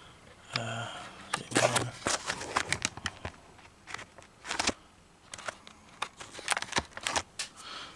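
Scattered light clicks and taps of close-up handling, with a short murmured vocal sound about half a second in. No machine is running.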